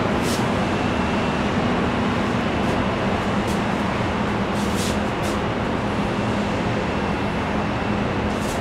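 Husky 600-ton preform injection molding machine running: a steady machinery hum and noise, with a few short hisses about half a second in, twice around five seconds in, and near the end.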